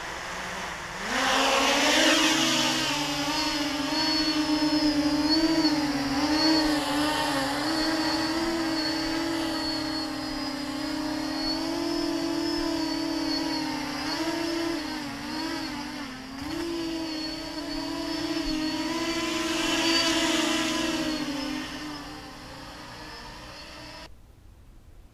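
QAV400 quadcopter's electric motors and propellers on a 4S battery spinning up with a rising whine about a second in, then a steady buzzing hum that wavers up and down in pitch as the throttle changes in flight. The hum fades near the end and stops.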